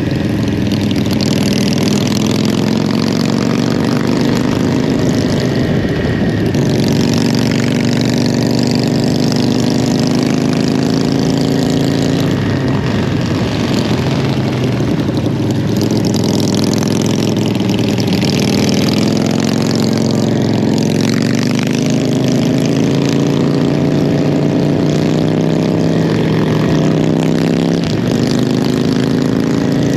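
2012 Yamaha YZF-R1's inline-four engine under way, its pitch climbing as it accelerates and dropping back several times as it shifts or comes off the throttle.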